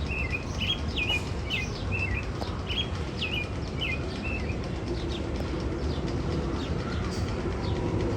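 Bird-chirp sound effect: a run of short, quick chirps about two a second, which stops about halfway through. A steady low hum runs underneath.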